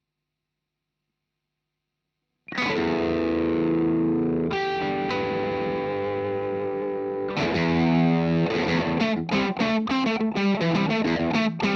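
Spear electric guitar played through distortion: after a couple of seconds of silence a chord is struck and left ringing, a second chord follows about two seconds later, and from about seven seconds in a fast, rhythmic strummed riff.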